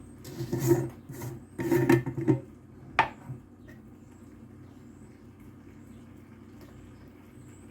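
Kitchen handling sounds: two short bursts of rubbing and scraping, then a single sharp clink about three seconds in.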